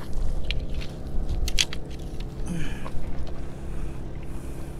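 Wind buffeting the microphone as a steady low rumble, with a few sharp clicks and scrapes of handling, the loudest a close pair about a second and a half in.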